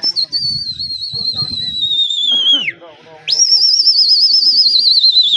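Two long, shrill whistles, the kind pigeon fanciers use to drive a flock up and keep it flying. The first slides slowly down in pitch and drops off at its end. After a short shout, the second starts higher and wavers rapidly up and down before falling away near the end.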